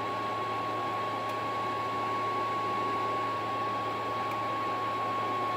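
Cooling fan of a CB linear amplifier running steadily: a constant whirring hiss with a steady high whine and a low hum underneath.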